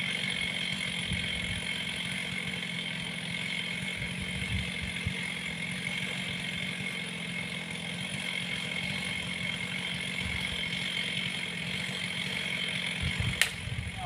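Chainsaw idling steadily, with a sharp click near the end.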